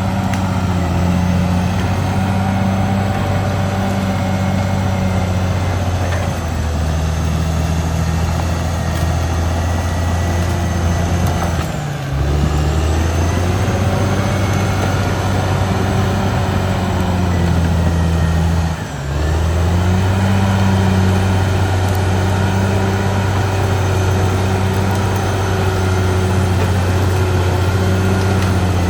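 Caterpillar D6R XL bulldozer's diesel engine running steadily, a low drone whose pitch shifts a little as the load changes. The sound dips briefly twice.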